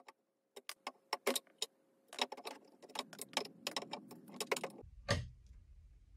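Quick, irregular light metal clicks and taps of a claw hammer working at a tiny nail that holds hardware on a wooden cabinet door, trying to work it loose. A dull thump near the end.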